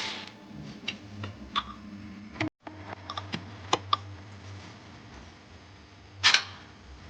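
A scatter of light clicks and knocks, with one louder, longer scrape about six seconds in.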